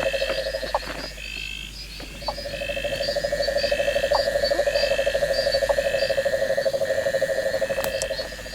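Frogs trilling in a steady chorus, with insects calling: a fast pulsing trill that drops out about a second in and picks up again a second later, over a thin steady high buzz and short high chirps about once a second.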